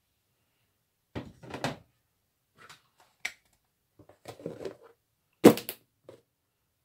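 Plastic lid being fitted onto a plastic tub: a string of short knocks and clacks, loudest a double clack about five and a half seconds in as the lid is pressed shut.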